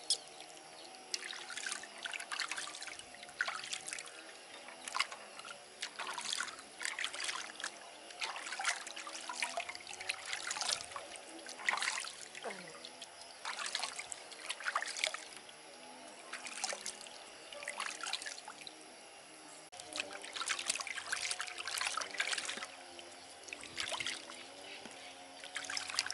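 Water trickling and splashing as a hand scoops it from an aluminium basin and pours it over a baby monkey being bathed. The short splashes and dribbles come again and again, with brief pauses between them.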